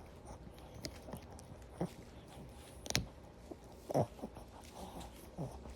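A dog crunching a raw carrot: a few scattered, sharp crunches as it bites and chews.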